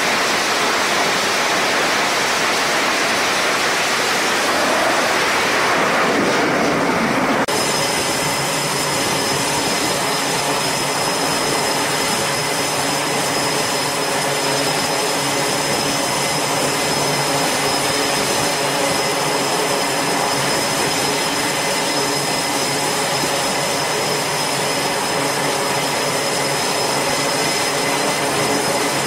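F/A-18 fighter jets' engines running on a carrier flight deck. A broad jet roar gives way suddenly, about seven seconds in, to a steady engine whine with a high, constant tone over a layered hum.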